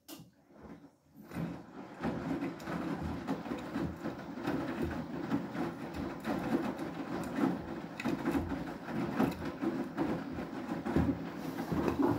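Beko WTK104121W washing machine drum starting to turn again about a second in after a pause, tumbling wet clothes so that water sloshes with soft knocks as the load drops, during the main wash.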